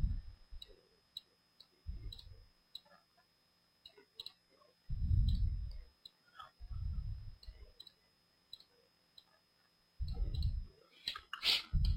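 Computer mouse buttons clicking, quick light clicks scattered irregularly while editing, with a few louder low muffled bumps about two, five, seven and ten seconds in.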